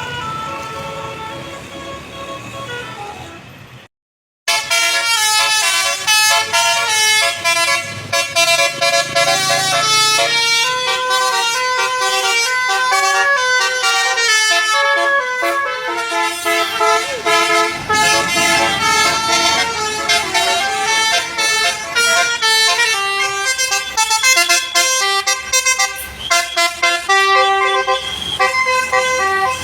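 Tour bus's 'basuri' telolet horn playing a tune of quick, high, changing notes. The first tune fades out, then after a short break a louder one plays on without a pause.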